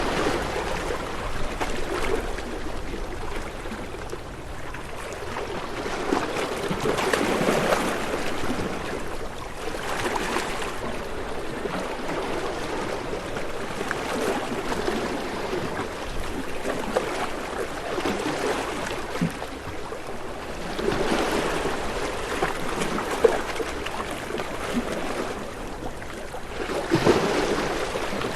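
Ocean waves washing in and drawing back, the rush of water swelling and fading in slow, irregular surges.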